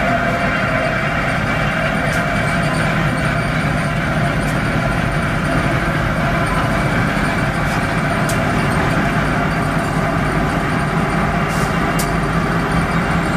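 EMD SW1500 switcher's 12-cylinder diesel engine idling steadily while the locomotive rides the turning turntable, with a few light clicks scattered through.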